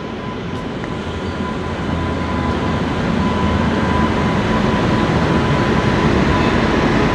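A train running past at a station, its rumble and rattle growing steadily louder as it comes closer, with a thin steady high tone running through it.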